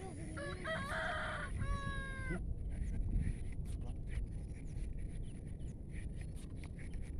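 A rooster crows once, a call of about two seconds that ends on a long held note, over steady low background noise and scattered small clicks.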